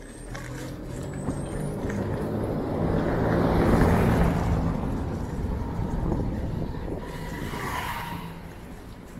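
A motor vehicle passing by, its engine hum growing louder to a peak about four seconds in and then fading away.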